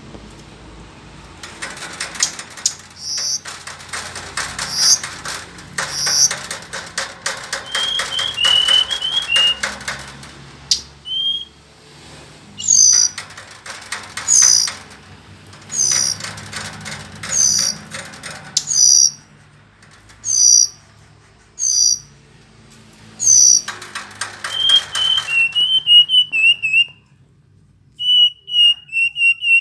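Verditer flycatcher singing: a run of short, high down-slurred whistles about one a second, mixed with brief warbling phrases and stretches of fast buzzy chattering.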